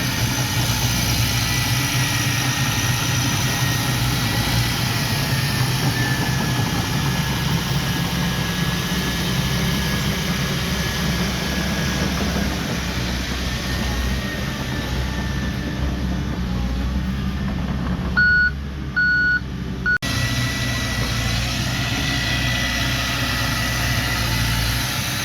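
Heavy earthmoving machine's diesel engine running steadily, with a thin high whine over it. About three-quarters of the way through, three short beeps of a reversing alarm sound.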